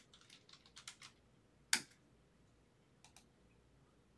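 Faint typing on a computer keyboard: a quick run of key clicks, one sharper, louder click a little under two seconds in, then a couple more clicks around three seconds.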